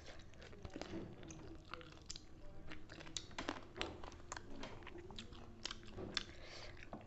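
Close-up eating sounds: chewing and biting with irregular wet smacks and small crunches, as a meal of rice, dal and roast chicken is eaten.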